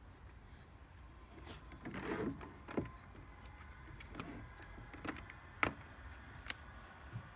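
Datapath QCT portable satellite terminal starting up: a brief whirr about two seconds in, then a string of sharp clicks and a faint steady whine.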